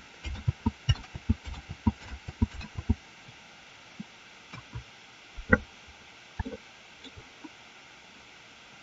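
Computer keyboard keys tapped in quick succession, about four clicks a second for the first three seconds, as Ctrl+Z is pressed over and over to undo. Then come a few scattered single clicks, the loudest about five and a half seconds in.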